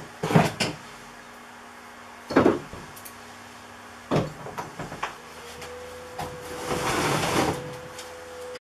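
Stacked plastic storage bins being opened, shut and shifted: a few sharp clunks and knocks, then a longer scraping rattle about seven seconds in.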